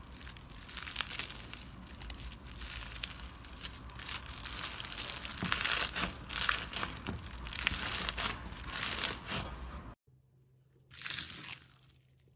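Slime being squeezed and worked by hand, with dense crackling and crunching that stops abruptly about ten seconds in, followed by one brief rustle.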